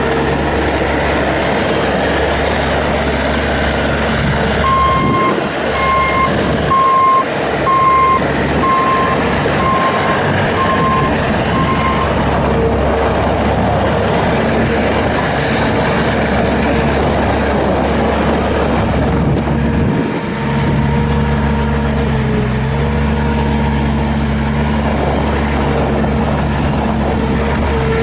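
Bobcat S450 skid steer loader's 49 hp diesel engine running steadily as the machine is driven, with its backup alarm beeping about eight times, roughly once a second, from about five seconds in as it reverses. About 20 seconds in the engine note briefly dips and then settles at a different pitch.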